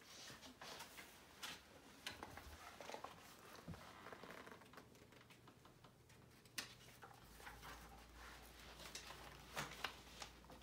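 Near silence, with faint scattered rustles and ticks of a picture book's paper pages being turned and handled.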